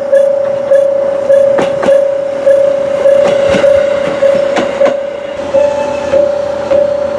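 Japanese railway level-crossing warning bell ringing steadily, a little under two dings a second. A train passes, its wheels clacking over rail joints between about one and five seconds in.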